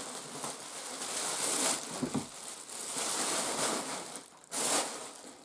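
Clear plastic packaging bag rustling and crinkling in irregular bursts as it is handled while items are unpacked from a cardboard parcel box, with a louder burst of crinkling near the end.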